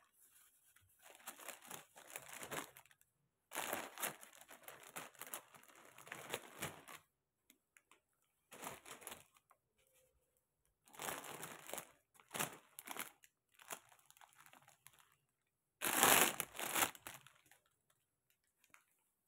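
A clear plastic bag crinkling and rustling as soft baby bedding is handled and packed into it, in several separate bursts with quiet pauses between, the loudest near the end.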